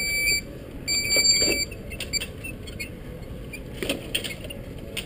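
Electric mobility shopping cart's warning beeper giving a short high beep, then a longer one about a second in, followed by scattered clicks and rattles from the cart as it moves.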